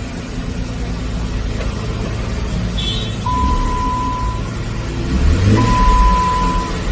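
2013 Jeep Wrangler Rubicon's 3.6 Pentastar V6 running through a Borla muffler, idling, then revved briefly about five and a half seconds in. Two long, even beeps sound about a second apart.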